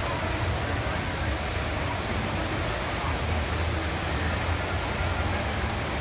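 The HSBC Rain Vortex indoor waterfall pouring steadily, a constant rushing hiss of falling water with a low rumble underneath.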